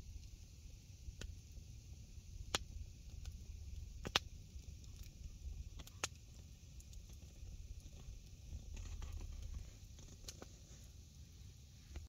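Wood campfire embers crackling: scattered sharp pops and snaps, two of them louder, over a low steady rumble.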